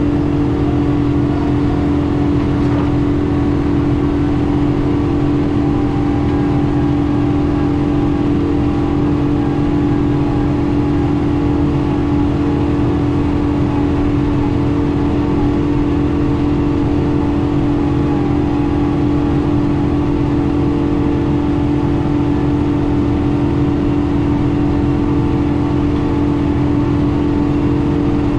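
John Deere tractor's diesel engine running steadily, driving a PTO flail mower through grass. It makes a loud, even drone with a strong steady hum that does not change.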